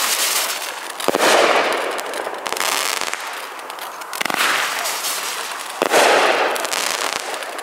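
Consumer aerial fireworks going off: three sharp reports, about a second in, about four seconds in and about six seconds in, each followed by about a second of noisy fizzle.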